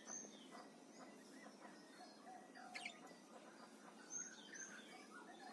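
Faint, scattered chirps from a pair of parakeets: a few short sweeping calls at the start, near three seconds and around four seconds in.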